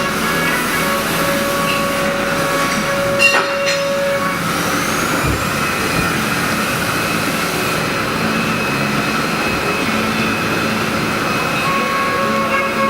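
Haas EC-400PP CNC horizontal mill running: a steady mechanical hum and hiss with held whining tones that come and go, and one sharp clack about three seconds in.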